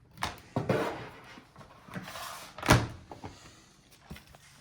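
Plastic laptop bottom case being pried off the palmrest: a run of sharp clicks and snaps as its clips release, with a stretch of scraping from the pry tool, the loudest snap about two and a half seconds in.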